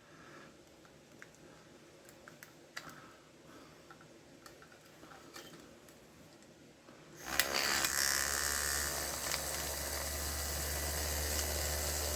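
Light clicks of small parts being handled, then about seven seconds in a small battery-powered DC motor with an offset weight, the vibration motor from a Hum Bug massager, is switched on and buzzes steadily with a low hum.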